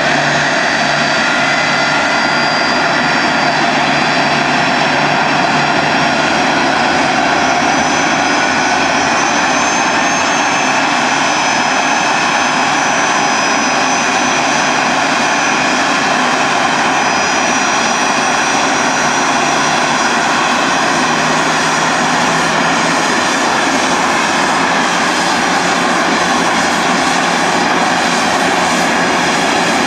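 Boeing 747SP's four jet engines running at taxi power as the airliner rolls past: a steady jet noise with several held high whining tones. A low hum steps slightly higher about two-thirds of the way in.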